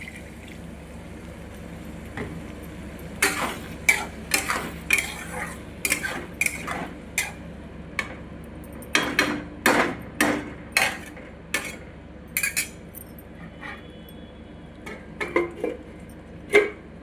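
A metal spoon clinking and scraping against a cooking pan while stirring, in irregular strokes that start about three seconds in, over a steady low hum.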